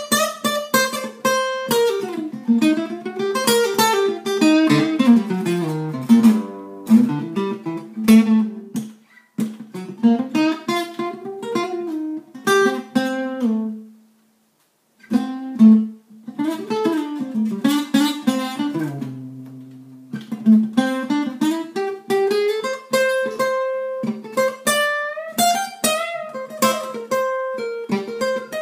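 Acoustic guitar playing single-note blues licks, with notes sliding up and down between pitches. There are two brief pauses, about nine seconds in and about fourteen seconds in.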